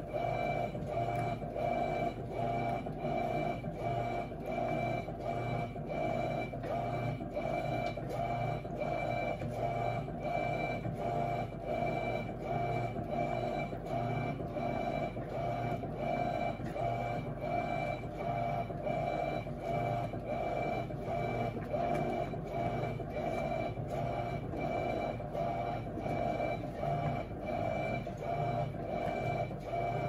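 Electrolux LT12F 12 kg top-loading washing machine agitating a load in soapy water: a steady mechanical hum with a rhythmic sloshing of water and clothes as the agitator swings back and forth.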